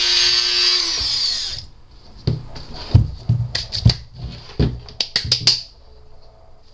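Hand-held rotary tool with a sanding drum running at speed, switched off about a second in and spinning down with a falling whine. Then a run of sharp taps and knocks as the tool is set down and handled.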